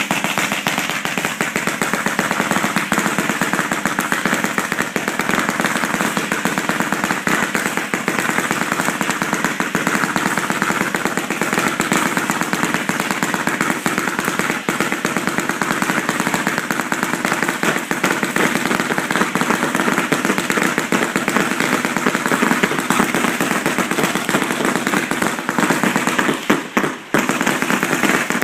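Fireworks crackling at close range: a dense, unbroken rattle of rapid pops like a long string of firecrackers, with one brief lull near the end.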